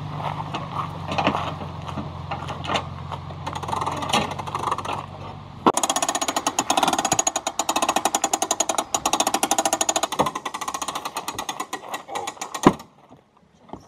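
A steady low hum with scattered knocks, then, about six seconds in, the hand crank of a Jayco pop-up camper's roof lift turned by hand: a rapid, even run of clicks from the lift winch as the roof is raised, ending in a single loud knock.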